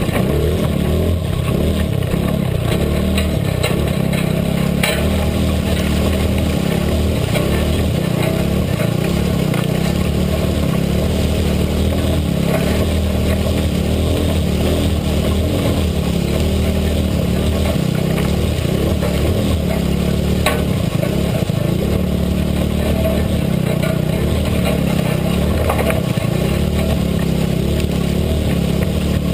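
Engine of a small off-road vehicle running steadily as it pushes through tall weeds, with a couple of sharp clicks.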